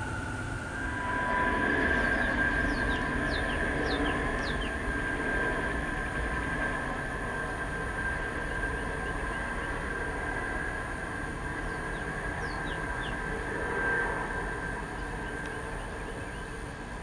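Military aircraft flying overhead: a steady rumble with a high whine that swells about two seconds in and slowly fades. Birds chirp briefly a few times over it.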